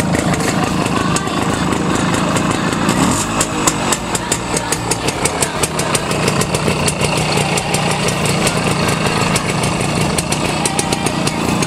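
Simson S51 moped's two-stroke single-cylinder engine running with an even, pulsing beat, settling to a steadier run about three seconds in.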